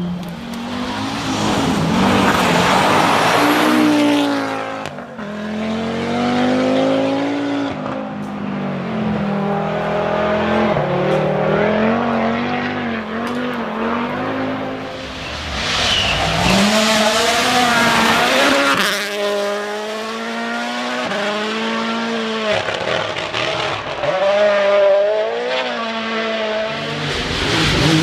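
Rally cars passing at speed on a closed stage, several passes in turn, engines revving hard and dropping back as they change gear and brake for corners.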